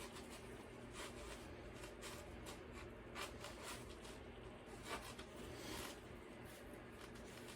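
Faint handling of small hand tools in a fabric tool case: scattered light clicks and rubbing, with a brief rustle a little before the end.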